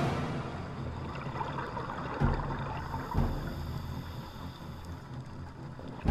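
Muffled underwater sound from a camera in its waterproof housing: a steady wash of water noise, with low thumps about two seconds in, a second later, and near the end.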